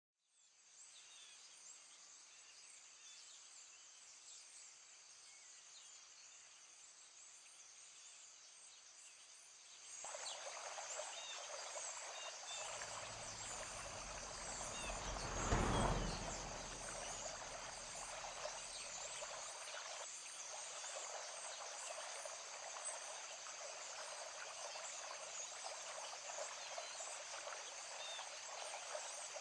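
Outdoor ambience of a rushing stream and steady high insect chirring, louder from about ten seconds in. A vehicle passes on the road between about 13 and 19 seconds in, swelling to the loudest point around 16 seconds and then fading.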